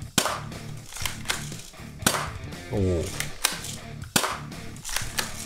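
ARII Glock 26 spring air-cocking airsoft pistol fired three times, about two seconds apart. Each shot is a sharp snap, with lighter clicks between the shots.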